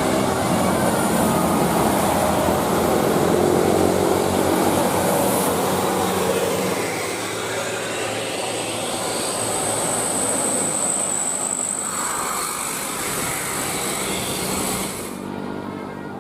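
A bus passing close by with a loud rush of engine and road noise, the last notes of its telolet musical horn at the start; the sound cuts off suddenly near the end.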